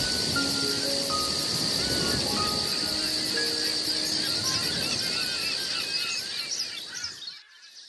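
A steady, high insect drone, with many birds chirping over it and a few sparse, soft held music notes underneath. It all fades down briefly near the end.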